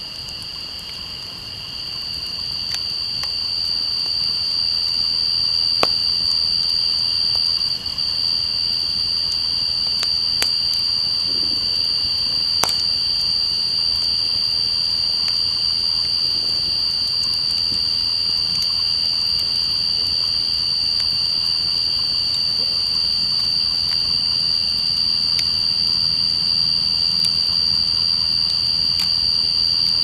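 Steady, high-pitched chorus of night insects in two unbroken pitches, with a few sharp crackles and pops from a wood campfire.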